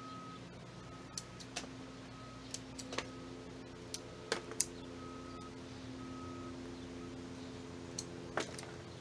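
Scattered light clicks and snaps from hands working an orchid's roots and pseudobulbs during repotting, about a dozen spread unevenly and loudest around four and a half seconds in, over a steady faint hum.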